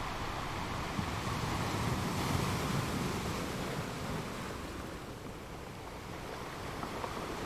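Sea waves washing on a shore: a steady rush of surf that swells to a peak a couple of seconds in, eases off, then starts to build again.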